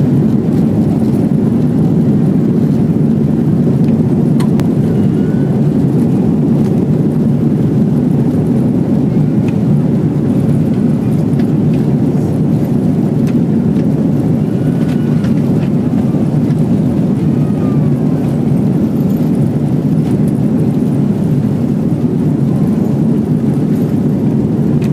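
Steady, loud jet engine and rolling noise heard inside an airliner's cabin as it moves along the ground on the taxiway and runway; the uploader takes the airliner for an Airbus A340-300.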